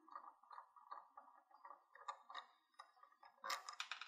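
Small cross-tip screwdriver turning a tiny screw out of the encoder module, a faint run of irregular ticks and scrapes. A louder clatter comes near the end as a small metal part or the tool is set down on the wooden bench.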